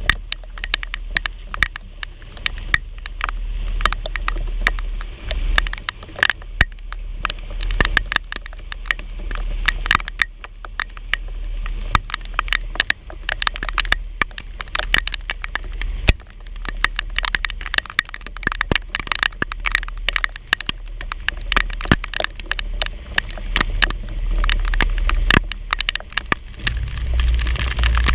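Rain drops hitting hard surfaces close to the microphone as a dense, irregular crackle of sharp ticks, over a steady low rumble.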